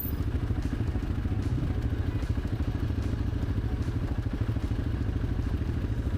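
ATV engine running steadily under way, a fast, even pulsing engine note with the vehicle's rattle over it.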